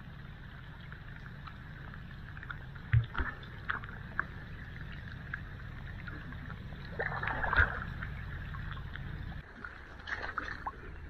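Water splashing and dripping with a few sharp knocks as fishing gear is worked in creek water, over a steady low rumble that stops abruptly near the end.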